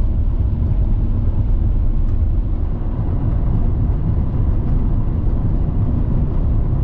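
Steady low road and engine rumble heard from inside the cabin of a car driving along a highway.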